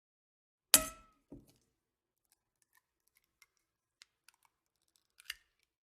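Eggshell breaking: one loud sharp crack, a smaller crack about half a second later, then faint scattered ticks of the shell and a small sharp click near the end.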